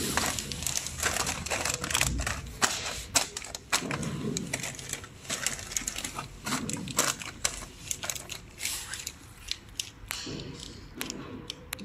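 Crinkling and crackling of sealed foil-laminated plastic snack bags being handled, a fast irregular run of sharp crackles.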